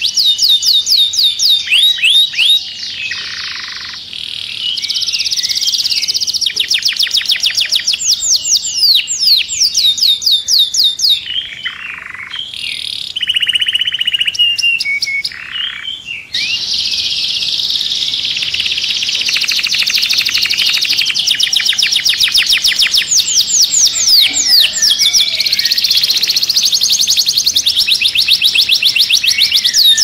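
Male canary singing hard: long, fast, high trills and rolls of rapidly repeated notes, changing phrase every few seconds, with a quieter, varied passage midway before it breaks back into a long, continuous rolling trill.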